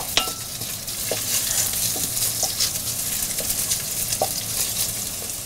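Diced lardons frying in a little oil in a stainless steel pan, a steady sizzle, while a wooden spatula stirs them and taps or scrapes the pan now and then, with a sharp knock at the very start.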